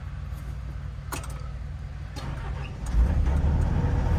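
Diesel engine running steadily with a few sharp clicks, then a louder, heavier engine sound from about three seconds in.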